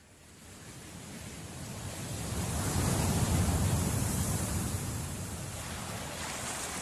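Intro sound effect: a rushing noise with a deep rumble that swells up from silence, peaks about three seconds in and then slowly fades.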